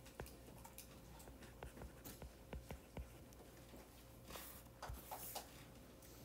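Faint clicks and light scratches of a stylus tip writing on a tablet's glass screen, with a few softer rubbing sounds near the end.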